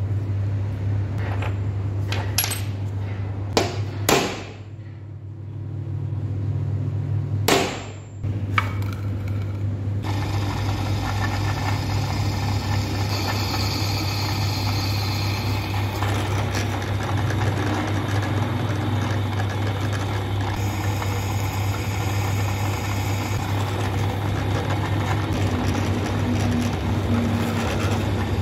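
A few sharp metal knocks over a steady motor hum, then, from about ten seconds in, a drill press bit cutting steadily into a metal disc, throwing off chips.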